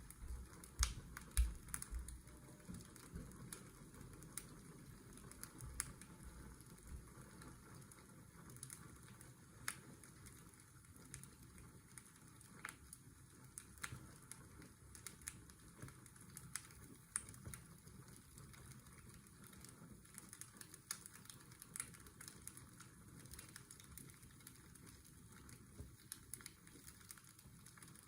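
Fireplace crackling: irregular sharp pops and crackles over a steady hiss of washing-machine white noise, with a few low thumps in the first couple of seconds.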